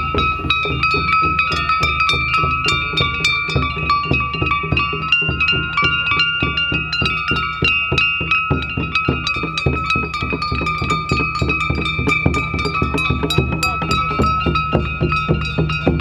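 Japanese festival drums and metal gongs beaten loudly in a fast, steady rhythm of about five strokes a second, with the gongs ringing on continuously.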